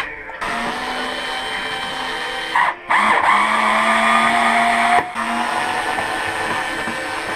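Small electric screwdriver motor whirring steadily as it undoes the screws holding the scooter's plastic panels, its pitch rising slowly in the middle. The sound breaks off briefly twice.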